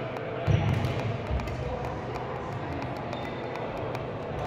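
Thuds and sharp ticks of badminton play on an indoor court, over a steady hall hum. The loudest thud comes about half a second in and a smaller one just over a second in.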